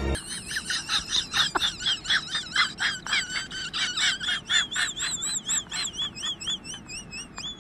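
Corgi puppy whining: a quick run of high-pitched wavering squeaks, about four or five a second, drawing out into a longer wavering whine near the end.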